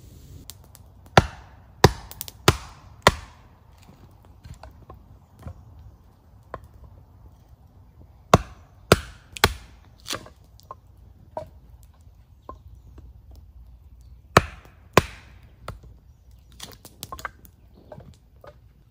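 Hardwood being chopped or split into small sticks: sharp wooden knocks in three bursts, four strokes a little over half a second apart, four more, then two, followed by lighter knocks and taps.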